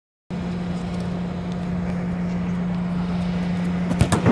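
Football kicked off the turf: a sharp smack of the foot striking the ball near the end, over a steady low hum and rush of the air-supported indoor practice dome.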